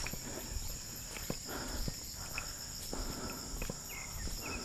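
Steady high-pitched insect chorus, with scattered snaps and rustles of footsteps moving through vegetation.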